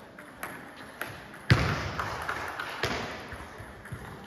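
Table tennis ball clicks and knocks echoing in a gym, with one loud thud about a second and a half in and a second knock near three seconds.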